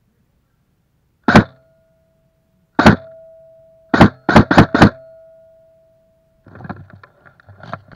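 Airsoft fire close to the microphone: a sharp loud crack, another about a second and a half later, then a quick run of four. A faint steady tone hangs under them, and near the end a run of lighter, quicker clicks, about four a second, begins.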